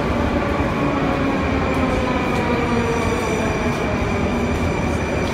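Metro train running alongside the platform: a loud, steady rumble with whining tones that slide slowly in pitch.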